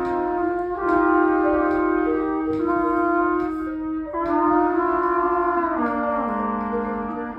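A section of student trumpets playing together in long held notes, moving to a new note every second or two.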